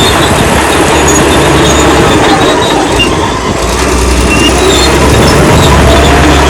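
Old crawler bulldozer at work: its diesel engine running loud and steady, with short high metallic squeaks from the steel tracks and running gear.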